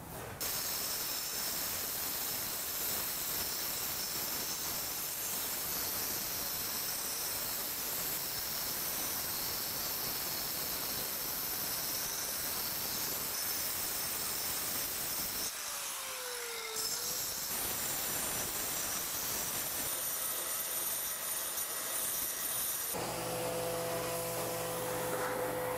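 Angle grinder grinding a brick: a steady high-pitched whine over a grinding hiss, which stops for about a second around two thirds of the way in and then resumes. About three seconds before the end it gives way to a different steady sound with a low hum.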